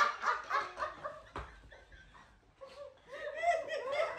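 A group of people laughing, dying away over the first second or so, then a short pause. Voices and laughter start up again about three seconds in.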